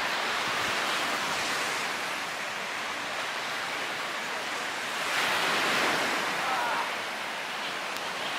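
Sea waves washing onto the beach, the surf swelling in the first second or two and again around five seconds in.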